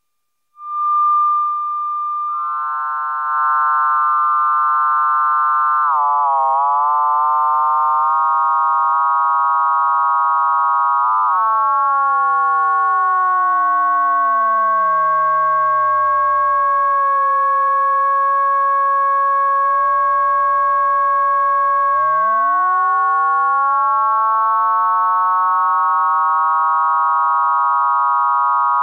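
Klavis Twin Waves digital oscillator playing a frequency-modulated synth tone. A steady high pitch starts about half a second in, and evenly spaced extra tones gather around it. They wobble, then fan out wide with some sweeping far down in pitch, and draw back in near the end as the FM settings are turned.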